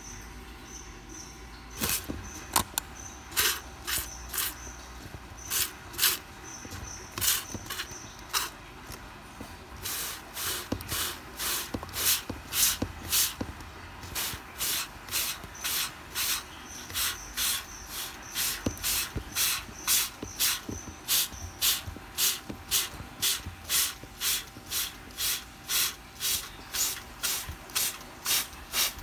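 Hand spray bottle squirting water onto a frog foam nest, again and again: a few irregular squirts at first, then a steady rhythm of about two a second from about ten seconds in.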